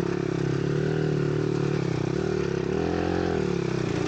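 Monkey bike's small single-cylinder four-stroke engine running under throttle as it climbs. The note rises and falls a little, swelling up briefly about three seconds in.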